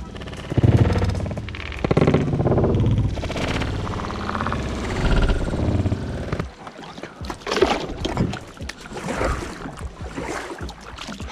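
Plastic kayak hull grinding and scraping over gravel as it is pushed off a rocky bank. About six seconds in this gives way to paddle strokes splashing and dripping in the water.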